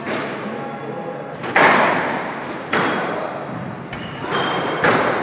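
Squash rally: the ball struck by rackets and smacking off the court walls, sharp impacts about once a second, each ringing on in the enclosed court. The loudest hit comes about one and a half seconds in.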